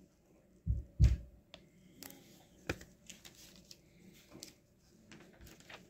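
Soft handling noises: two dull thumps about a second in, then a sharp click and faint scattered rustles and ticks as a paper instruction booklet is handled.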